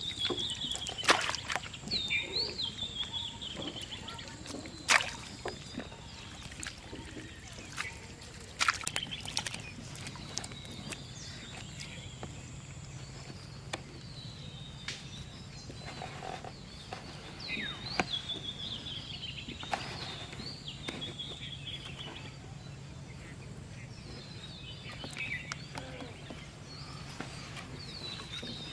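Birds calling over and over in short chirps and falling trills, with a few sharp knocks in the first ten seconds. A faint steady low hum joins about halfway through.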